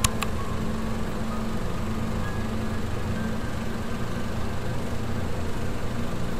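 Film projector sound effect: two sharp clicks at the start, then a steady mechanical whirring rumble, with faint music underneath.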